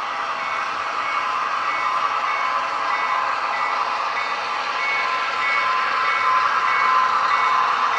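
HO-scale model train running on the track, its rolling noise growing louder as it approaches, with a short high beeping tone coming and going throughout.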